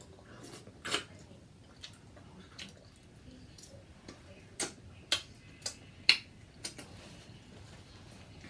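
Eating sounds close to the microphone during a seafood boil: scattered short, irregular clicks and smacks, about a dozen.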